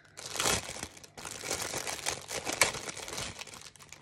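Thin clear plastic packet crinkling as it is handled and opened and an item is pulled out of it, with a brief pause about a second in.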